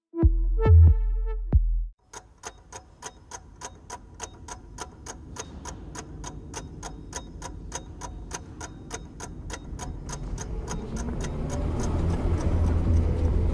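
A short musical logo jingle with a deep bass note, then a clock ticking steadily at about four ticks a second, with a low rumbling drone swelling in under the ticking near the end.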